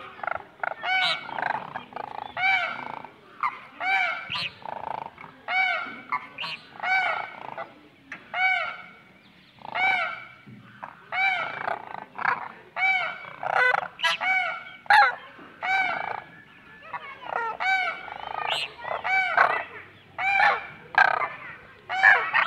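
Demoiselle cranes calling: a long run of short honking calls, each rising and falling in pitch, repeated about once a second.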